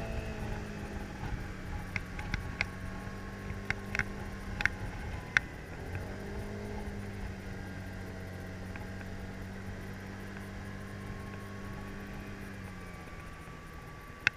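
Kymco scooter engine running steadily under way, its note rising and falling near the start and again about six seconds in. Several sharp clicks come between about two and five seconds.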